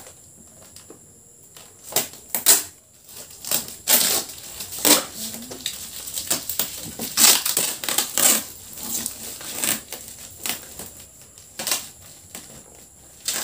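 Packing tape being ripped and peeled off a cardboard shipping box by hand: a string of uneven rasping tears, some short, some longer and louder, starting about two seconds in.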